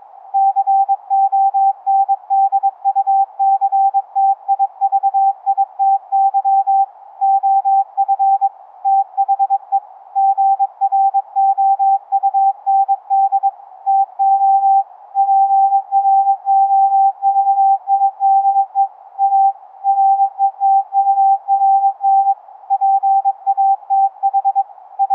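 Morse code (CW) tone from an 11 Hz ELF through-the-earth transceiver, upconverted by a sound-card SDR mixer to an audible beep. The beep is keyed on and off in dots and dashes throughout, over a faint steady hiss.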